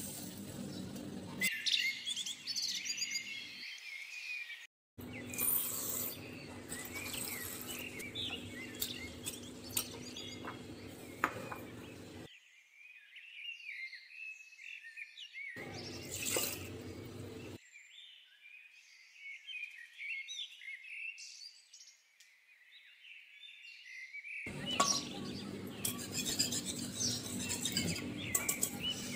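Small birds chirping over and over in the background, with a few sharp clinks. Near the end a wire whisk clatters rapidly against the aluminium pressure cooker as the cooked dal is mashed.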